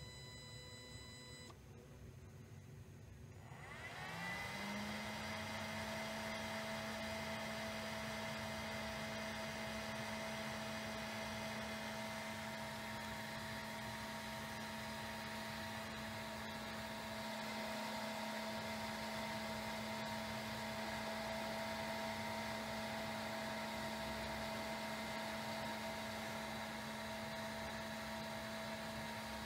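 A small electric cooling fan in a Fabrikator Mini 3D printer spins up about four seconds in, its pitch rising quickly, then runs at a steady hum.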